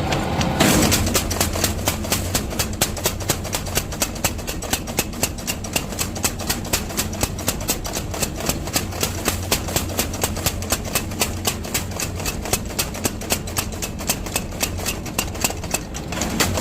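Mechanical power hammer forging an axe head, striking in a steady rhythm of about three blows a second over the constant hum of its motor.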